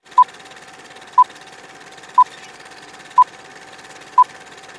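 Old film-leader countdown sound effect: a short high beep once a second, five times, over a faint steady tone and hiss.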